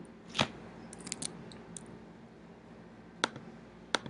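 Several clicks of a computer's mouse and keys against faint room hiss: a sharp click about half a second in, a quick run of lighter clicks about a second in, then two more sharp clicks near the end.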